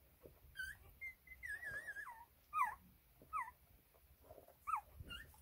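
Newborn Elo puppies whimpering and squeaking: a high, wavering whine about a second in, then several short squeals that slide down in pitch.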